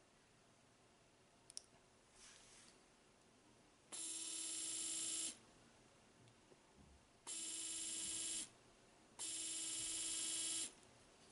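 AC 220 V universal motor running on DC, switched on and off three times in short runs of one to one and a half seconds, each a steady buzzing whine that grows a little louder as it spins up, then cuts off sharply. A single sharp click comes about one and a half seconds in.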